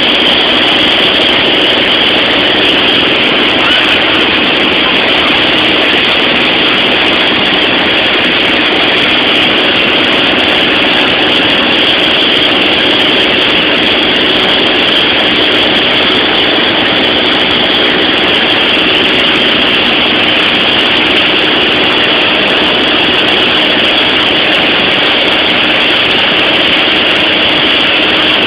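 Cabin noise of a small propeller airplane in flight: the engine and propeller running steadily, a constant loud hum with a few faint steady tones and no change in pitch.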